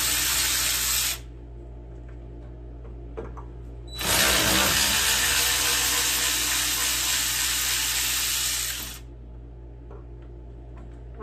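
Cordless power ratchet with a 5/16 socket running as it spins out bolts. One run stops about a second in, and a second run of about five seconds begins about four seconds in.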